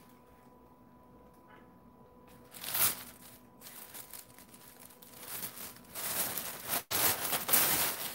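White tissue paper being unwrapped by hand, rustling and crinkling: quiet at first, a brief rustle about three seconds in, then louder, continuous crinkling through the second half.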